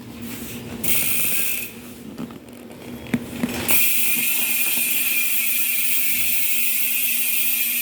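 Arc MT-009 rear freehub ratcheting as the wheel freewheels: a short burst of clicking about a second in, then, a little past halfway, a steady, loud, high-pitched buzz of the pawls as the wheel spins freely.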